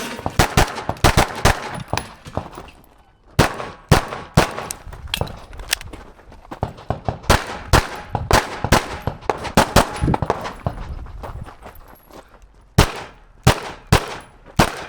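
Live-fire pistol shots in quick strings of several shots each, broken by short pauses of about a second, with a brief echo after each shot.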